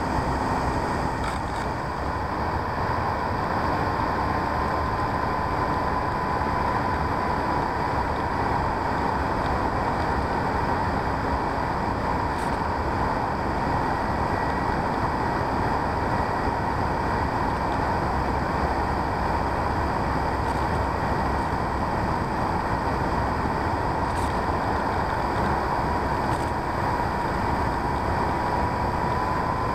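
Radio-control P-51D Mustang model plane in flight, heard from on board: its motor and propeller give a steady whine that dips slightly and rises again near the end, over constant rushing wind noise.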